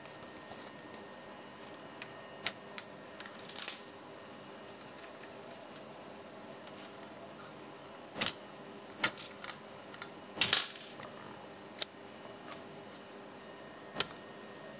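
LEGO Technic plastic parts clicking and rattling as they are fitted together by hand: scattered single sharp clicks, a few of them louder, over faint room tone.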